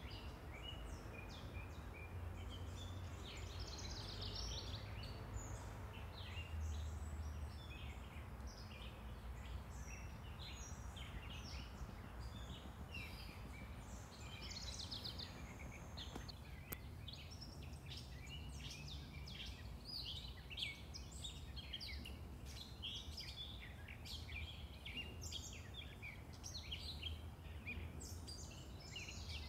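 Songbirds chirping and singing in many short high notes, busier in the second half, over a steady low rumble of distant road traffic.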